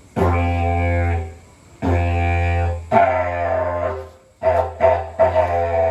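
Didgeridoo played as a low drone in a series of blasts, with a voiced howl through the instrument imitating an animal's howling: three blasts of about a second each, a few short pulses, then a long held note near the end whose howl slides down in pitch over the drone.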